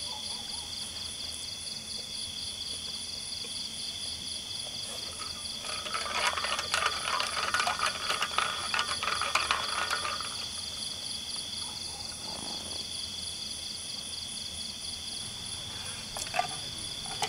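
Night insects chirping in a steady chorus of rapidly pulsing high tones. Around six seconds in, a louder rattling, clicking burst rises over them for about four seconds, then fades, and a few sharp clicks come near the end.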